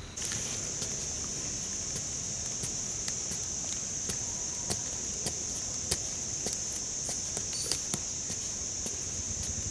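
A steady high-pitched insect chorus, with scattered sharp knocks and scrapes as a digging stick is jabbed into dry red soil.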